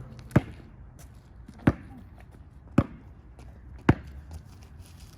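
A basketball being dribbled: four bounces about one a second.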